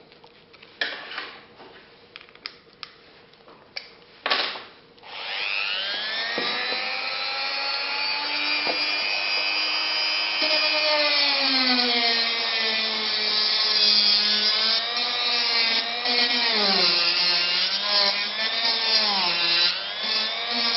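A few clicks and taps of the tool being handled, then about five seconds in a corded rotary tool's motor starts, its whine rising to a steady pitch at a slow speed setting. Later the pitch sags and wavers repeatedly as the grinding stone is pressed into modelling foam and loads the motor.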